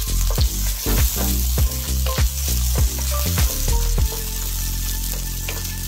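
Halved tomatoes and minced garlic sizzling in hot oil in a frying pan while being stirred with a wooden spoon. Background music with a steady beat plays over it until about four seconds in.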